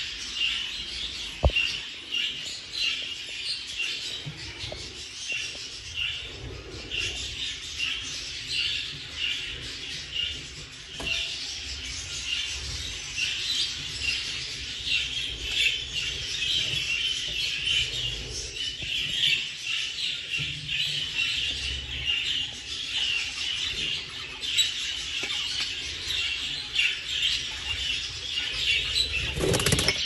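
Budgerigars chattering, with a steady stream of quick chirps and warbles all the way through.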